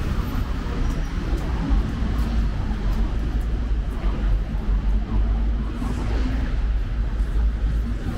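Steady low rumble of city street traffic, passing cars blending into one continuous street noise.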